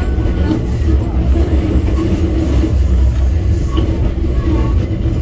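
Enoshima Electric Railway 300-series electric train running, heard from inside the car: a steady low rumble from the wheels and running gear, with a constant hum.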